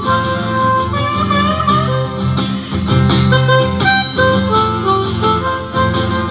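Harmonica played cupped against a vocal microphone, with held notes that waver and bend in pitch, over an acoustic guitar strummed in a steady rhythm.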